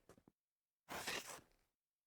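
Scuffing on a tile floor: the tail of one scuff dies away at the start, then a single scraping scuff of under a second comes about a second in.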